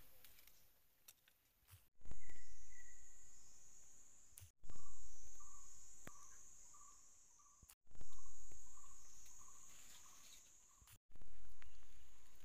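Insects chirring in a high, steady drone, with a low rumble that is loudest at the start of each short stretch and fades away. The sound breaks off abruptly several times.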